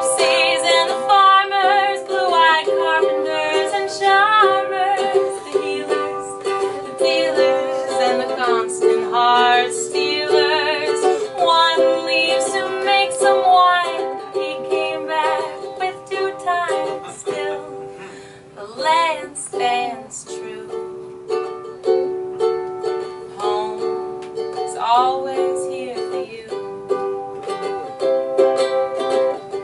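A woman singing while strumming a ukulele, her voice wavering in vibrato on held notes.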